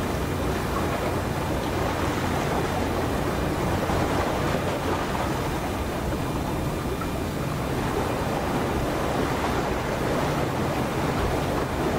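Steady low rumble of the helicopter destroyer JS Izumo's machinery as the ship passes close by under way, mixed with the wash of water along the hull and wind on the microphone.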